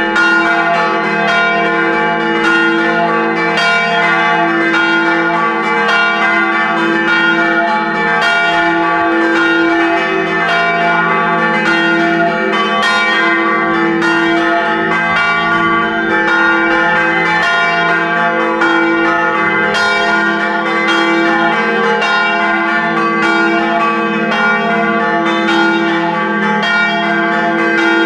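Church tower bells ringing a continuous peal, several bells struck one after another in quick succession so their ringing overlaps.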